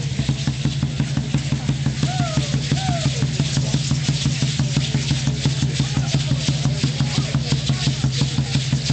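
Aztec dance drumming: a fast, steady drumbeat of several beats a second, with faint crowd voices.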